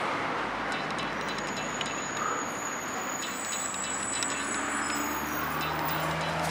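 Steady road traffic noise from passing vehicles, with a vehicle engine's low hum growing louder in the second half. Faint thin high-pitched tones sound about halfway through.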